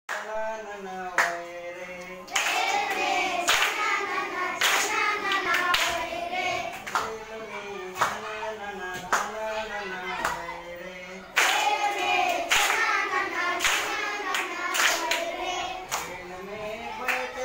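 Schoolchildren singing a song together in chorus, clapping their hands on the beat about once a second.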